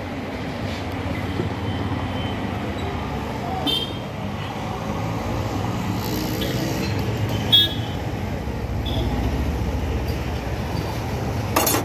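Steady low rumble of road traffic, with a few short sharp clinks, the loudest about two-thirds of the way through.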